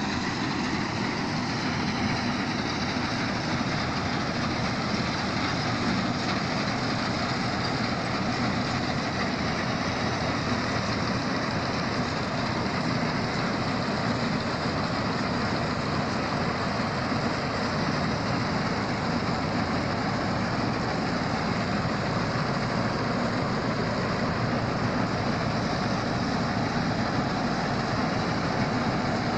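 Combine harvester running steadily under load, a continuous engine and machinery noise with no breaks or changes in pitch.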